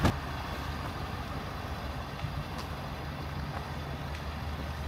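A truck door shuts with a single thud, then the 2023 Ford F-550's engine runs at a steady low idle.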